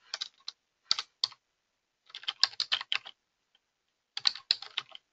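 Typing on a computer keyboard: four short runs of keystrokes with brief pauses between them.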